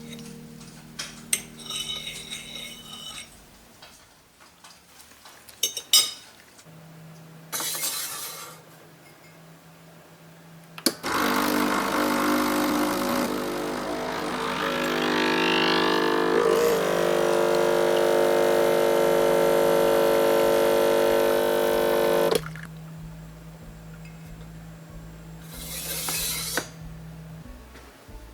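A few light clinks of dishes, then an electric kitchen appliance runs loudly and steadily for about eleven seconds, starting suddenly and cutting off.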